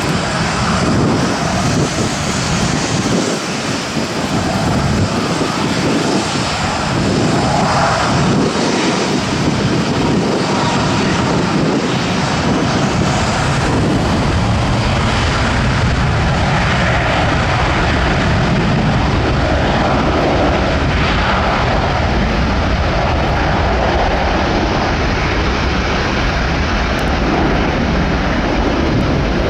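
Boeing 737-600 airliner's CFM56-7B turbofan engines running, loud and steady, with a deep rumble under the jet noise.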